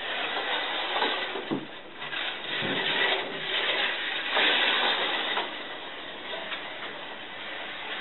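A modified SCX Compact 1/43-scale slot car running laps on a plastic track: the small electric motor whines and the car rattles along the slot, getting louder and quieter as it passes nearer and farther.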